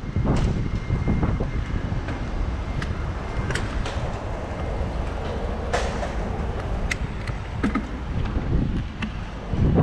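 Wind buffeting the microphone of a rider on a moving bicycle: a steady low rumble with a few faint clicks scattered through it.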